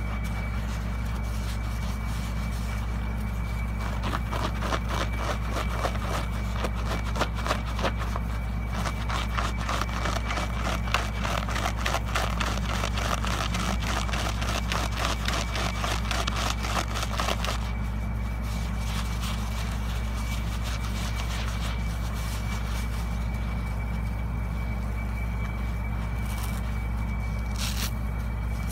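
Foam-soaked kitchen scrub sponge squeezed and wrung by hand: a dense wet crackling and squelching of soap foam and sponge. It is busiest from about four seconds in until about seventeen seconds, then lighter. A steady low hum and a faint high whine sit underneath.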